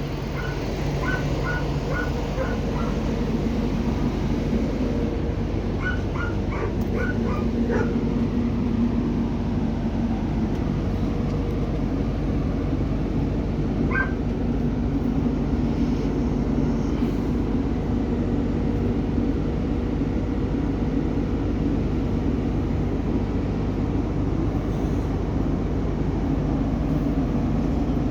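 A payloader's diesel engine running at a steady drone. Short high-pitched yelps cut in over it: a cluster in the first two seconds, another around six to eight seconds in, and a single one at about fourteen seconds.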